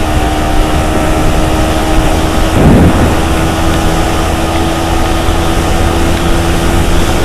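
Yamaha R15 V3's single-cylinder engine running at steady high revs at speed, its pitch held level, over a heavy rush of wind noise. A brief louder low rush comes about three seconds in.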